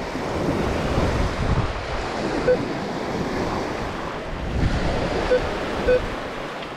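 Steady wind buffeting the microphone over beach surf. Three short, mid-pitched target beeps come from a Minelab Vanquish 540 metal detector, about two and a half seconds in and twice near the end, as its coil sweeps the dug hole.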